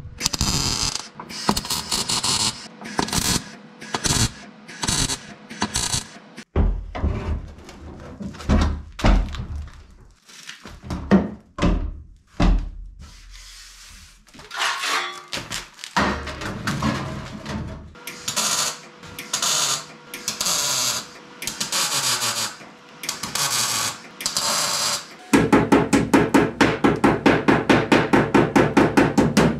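MIG welder laying short tack and stitch welds of steel onto a car's rear wheel arch repair panel: repeated crackling bursts, each under a second, with a few low thumps in the middle. Near the end the welding comes as a fast, even run of rapid pulses.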